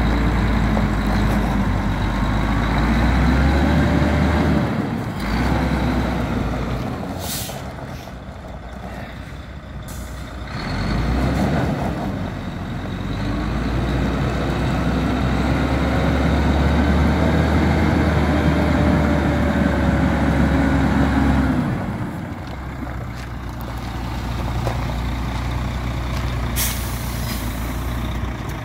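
Volvo FM400 truck's six-cylinder diesel engine running at idle, its drone growing louder and softer several times, with a few short hisses of air.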